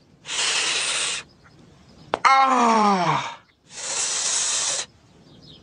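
A cartoon man's voice in pain from a hurt knee, hissing through clenched teeth, then a falling groan about two seconds in, then another hiss.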